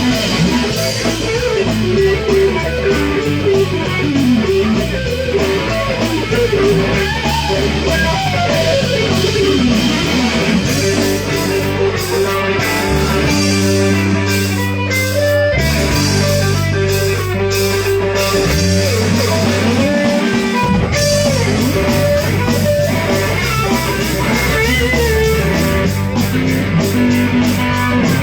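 Live rock band playing an instrumental passage: electric guitar lead lines over bass and drums.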